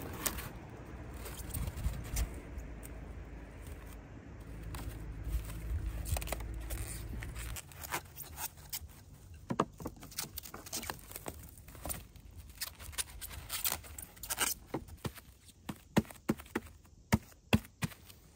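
Plastic cling film being pulled off its roll and stretched and smoothed by hand over a sushi rolling mat, with rustling and many short sharp crackles in the second half.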